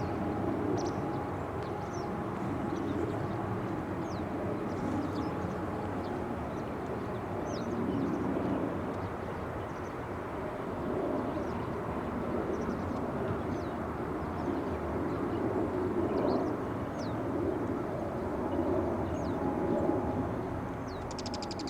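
Distant, steady rumble of a departing Boeing 777-200 airliner's jet engines, rising and falling gently in level as it climbs away. A small bird chirps briefly every second or two over it.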